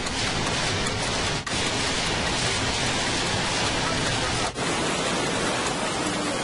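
Loud, even rushing noise, broken by two brief dropouts about a second and a half and four and a half seconds in.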